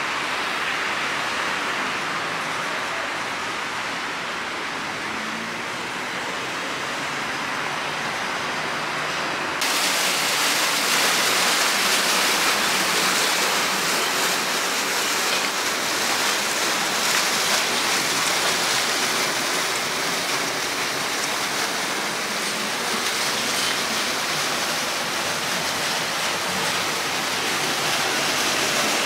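Water pouring and splashing steadily into a fish pond, a constant rushing noise with no pitch to it. It gets louder and brighter abruptly about ten seconds in.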